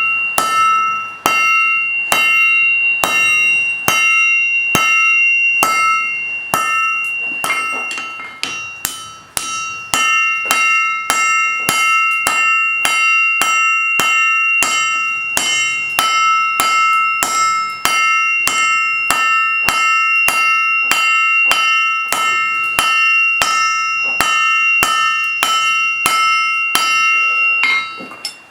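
Hand hammer striking hot steel on an anvil at about two blows a second, each blow leaving the anvil ringing in a few steady tones. The blows stop just before the end.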